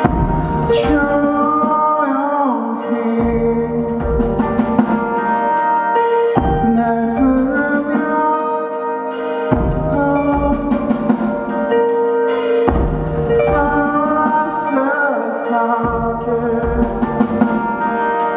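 Live rock band music: electric guitar over drums, bass and keyboards, the chords changing about every three seconds.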